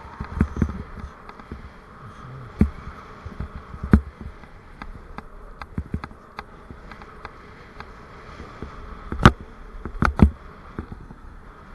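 Ride noise picked up by a camera mounted on a moving bicycle: a steady buzzing hum with irregular knocks and rattles as the bike goes over bumps in the road surface, the loudest a jolt about nine seconds in and another a second later.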